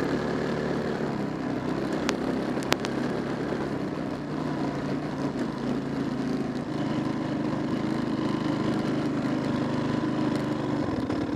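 Car engine running steadily, with two sharp clicks a couple of seconds in.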